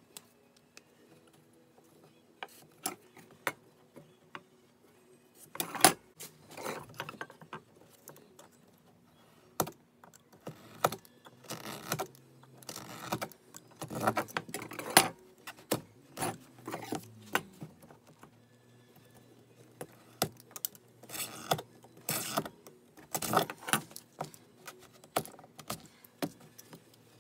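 Tools and parts being handled on a wooden workbench: scattered clicks and taps, with a few short bursts of scraping and rustling, over a faint steady hum.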